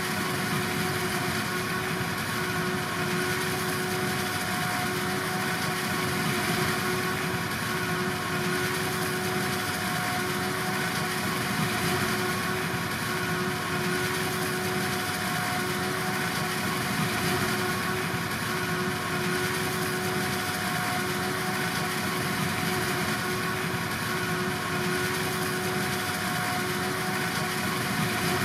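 Harvest machinery running steadily at constant speed: an even engine drone with a steady, unchanging whine over it.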